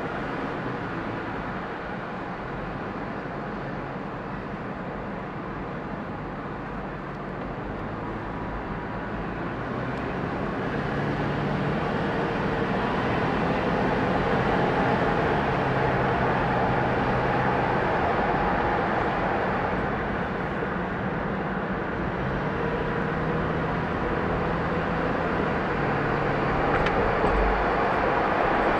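Car driving on city roads: steady tyre and road noise with a low engine hum, growing louder about a third of the way in.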